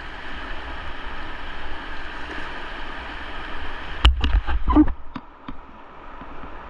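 Steady rushing of fast whitewater on a river at high flood level. About four seconds in there is a quick cluster of sharp knocks and thumps close to the microphone, and a few lighter clicks come near the end.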